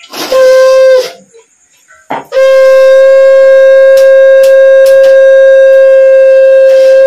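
Conch shell (shankh) blown by mouth for a Hindu puja, giving a single held note: one short blast of under a second at the start, then, after a pause of over a second, a long steady blast that begins about two seconds in and is still sounding at the end.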